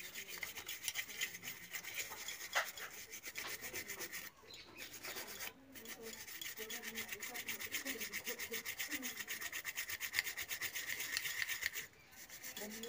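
Toothbrush bristles scrubbing a Jio Phone's main circuit board wet with petrol, in quick, even, repeated strokes with a couple of brief pauses.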